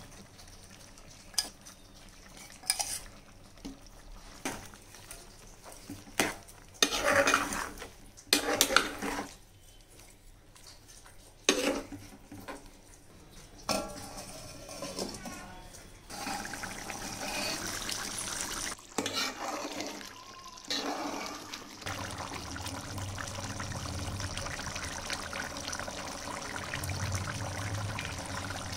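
Metal spoon stirring and scraping in a steel cooking pot, with scattered clanks of utensils and a steel lid. From about halfway on there is a steady sound of thick curry gravy cooking in the pot.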